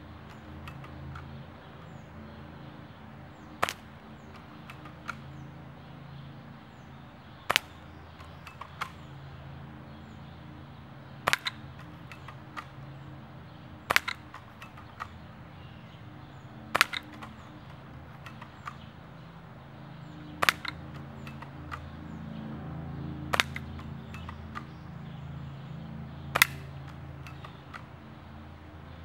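Daisy Model 25 pump-action, spring-piston BB gun fired repeatedly: eight sharp shots about three to four seconds apart, most followed a second or so later by a fainter click. A low drone of speedboat engines runs underneath.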